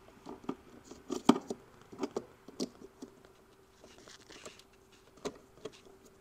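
Plastic wiring connectors and harness being handled by a gloved hand in a BMW E46's DME electronics box: irregular light clicks, taps and rustles as a connector is unplugged, the sharpest click about a second in, over a faint steady hum.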